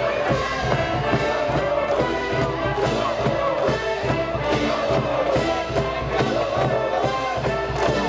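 School cheering brass band playing a fight song from the stands, brass over a steady drum beat.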